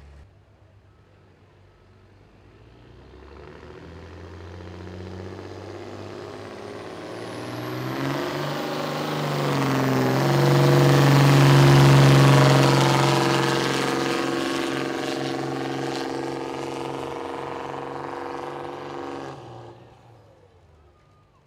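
Diesel pickup truck's engine at full throttle pulling a weight-transfer sled: the engine note builds over several seconds with a turbo whistle climbing very high, is loudest about halfway through, holds steady under load, and then drops away suddenly near the end as the run finishes.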